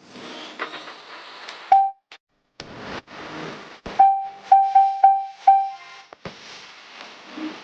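A run of short electronic beeps, all at the same pitch: one about two seconds in, then five in quick, uneven succession between about four and six seconds in. They sit over a background hiss that breaks off abruptly into brief silences.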